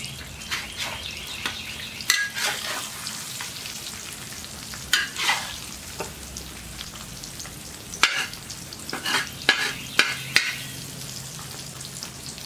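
Eggs sizzling in oil on a steel plow disc. A metal spatula scrapes and clicks against the disc several times as the eggs are stirred and broken up.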